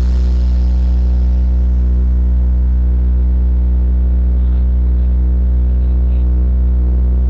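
A large sound system's subwoofers holding one deep, steady bass tone, loud and unbroken, with a faint buzz of higher overtones above it.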